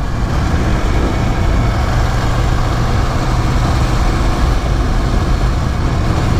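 Ducati Scrambler's air-cooled L-twin on its stock exhaust running steadily while the motorcycle cruises, mixed with a steady rush of wind and road noise.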